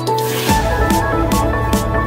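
Electronic background music with a beat. A crash comes at the start, then a bass line and a steady beat come in about half a second in, with a sharp hit roughly every 0.4 s.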